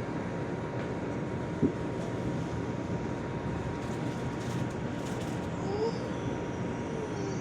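Steady rumble of an R142 subway car running on the track, heard from inside the car, with a faint constant whine.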